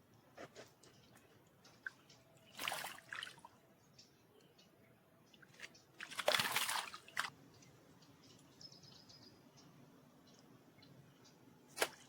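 Two short bursts of water splashing, the second longer, about three and a half seconds apart, then a sharp click near the end.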